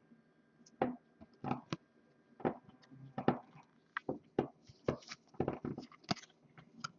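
Trading cards being handled and flipped through: an irregular string of short clicks and snaps of card stock.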